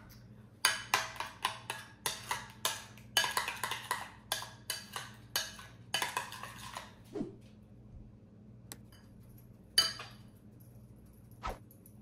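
Utensil clinking against a glass bowl as a creamy salad dressing is stirred: a run of quick clinks, about two or three a second, for the first six seconds or so, then only a few scattered taps.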